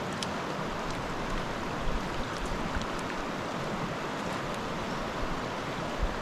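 Creek water running in a steady rushing hiss.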